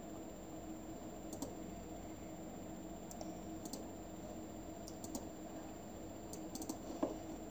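A handful of faint computer mouse clicks, some in quick pairs, over a low steady hum.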